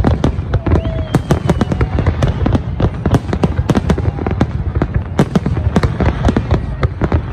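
Fireworks display in full barrage: many sharp bangs and cracks a second, one on top of another, over a steady low rumble.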